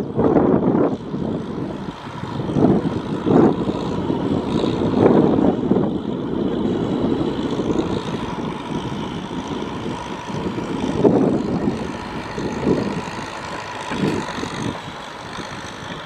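Tractor's diesel engine running under load as it drives its front blade through deep mud, the sound swelling and easing in irregular surges.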